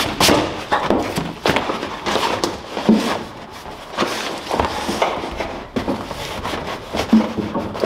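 A flexible, foam-backed linoleum floor mat being handled and shifted into place on a truck cab floor, rustling and scraping against foil-faced insulation, with a few brief bumps and knocks among the rustling.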